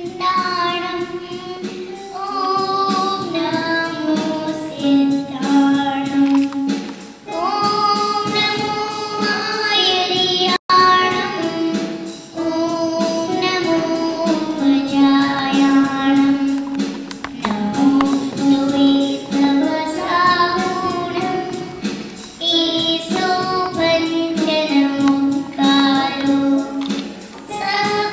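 A young girl singing solo into a handheld microphone, a melody in long held notes phrase after phrase. The sound cuts out for an instant about ten and a half seconds in.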